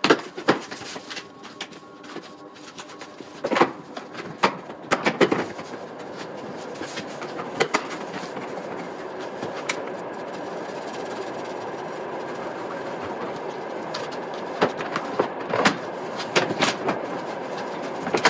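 Plastic interior trim panels around a car's front trunk being fitted and pressed into place: a string of sharp plastic knocks, clicks and rattles, over a steady background noise.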